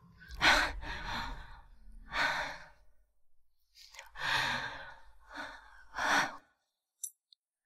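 A woman's pained gasps and sighing breaths, a series of about six, as she nurses a hand that has just been stepped on.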